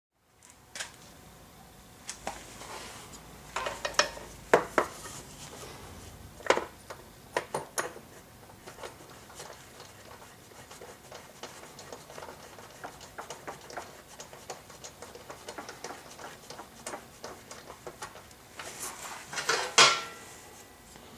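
Scattered small metallic clicks and clinks as a new spark plug (BPR7HS) is fitted by hand into a scooter engine. A louder cluster of clinks comes just before the end, as a spark plug wrench is put onto the plug.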